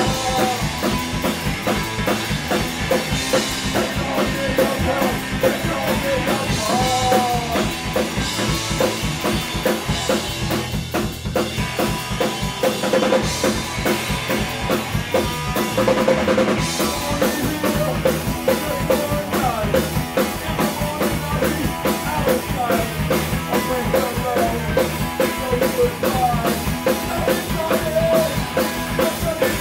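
Punk rock band playing live at full volume: a driving drum kit with electric guitars, one continuous song.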